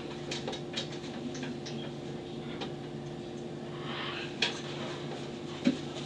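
A steady low machine hum with scattered light clicks and taps; two louder clicks come near the end.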